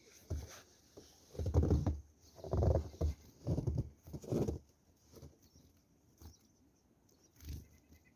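Footsteps crunching in snow: four loud steps about a second apart, then a few fainter ones.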